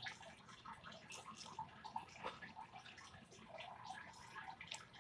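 Faint trickling and dripping water, with small irregular ticks.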